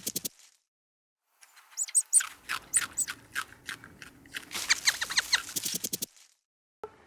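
Bird chirping in quick, sharp series of high notes, in two bursts separated by abrupt silences.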